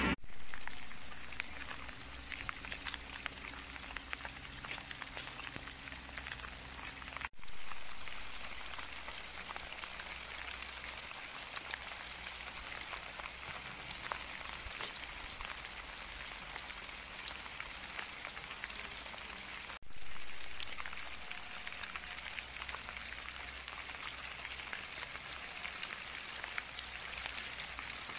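Light rain pattering steadily on the street and the piled debris, an even hiss full of tiny crackling drops. It cuts out briefly twice, at about seven seconds and again near twenty seconds, and comes back a little louder each time.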